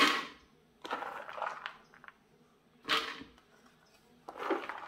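Freshly cut green corn kernels being handled into a blender jar: a sharp knock, then a rustling scrape, twice over. The blender is not yet running.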